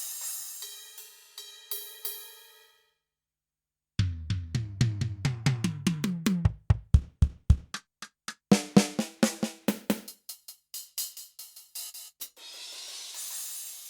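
Kurzweil K2000 synthesizer's factory drum-kit program, played dry with no effects. A cymbal rings out and fades. After a short pause comes a quick run of drum hits, first low pitched drums that slide down the scale, then sharper snare and hi-hat strokes. Another cymbal wash comes near the end.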